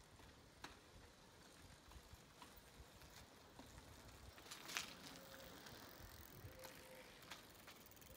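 Near silence with faint clicks and rattles from children's bicycles riding past on tarmac, the sharpest click about five seconds in.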